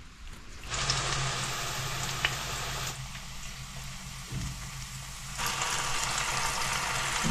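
Wild mushrooms frying in a pan: a steady crackling sizzle over a low steady hum. It starts about a second in and eases off for a couple of seconds midway.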